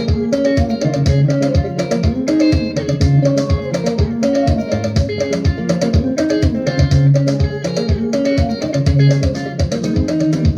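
Gospel song's instrumental passage: quick plucked guitar lines over bass guitar and a steady, fast drum beat.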